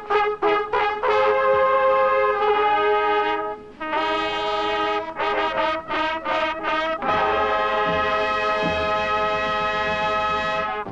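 A marching band's brass horns playing a fanfare: a run of short notes, then long held chords, with a brief break about three and a half seconds in and a final long held chord.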